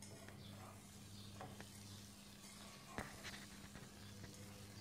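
Faint scraping and light clinks of a spoon stirring fried okra in a metal pan, with one sharper clink about three seconds in.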